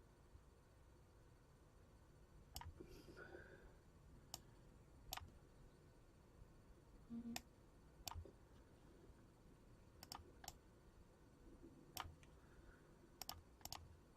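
Faint, sharp clicks, about a dozen at irregular intervals, some in quick pairs, over near-silent room tone.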